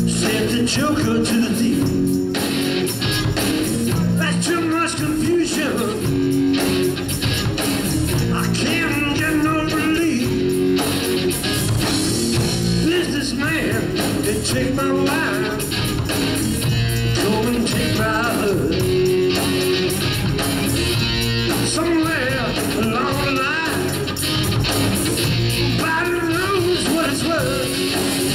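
Live rock band playing a rock song: electric guitars, bass guitar and drums, loud and continuous.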